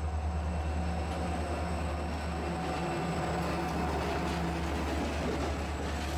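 Diesel-electric freight locomotives running, a steady low engine rumble with a slight pulsing beat.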